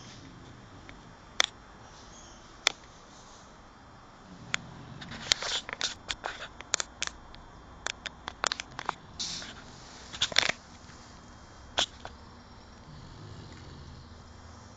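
A sleeping pet snoring: slow, low snoring breaths about every four to five seconds. A run of sharp clicks and crackles comes through the middle.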